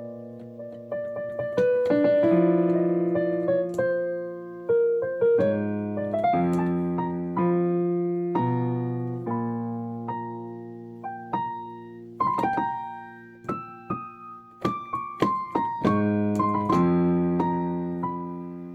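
Solo keyboard music with a piano sound: chords and melody notes struck one after another, each left to ring and fade.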